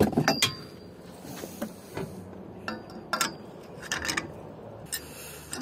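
Metal clinking and knocking: about ten separate clinks with a short ring, spaced unevenly, as gear is handled and the brass tiller is set up on a narrowboat's stern.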